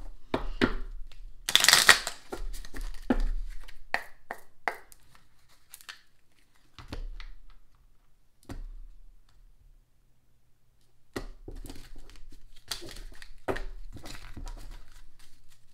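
Tarot cards shuffled by hand: bursts of riffling and slapping card edges, a few seconds of near stillness with a few single taps in the middle, then more rapid shuffling toward the end.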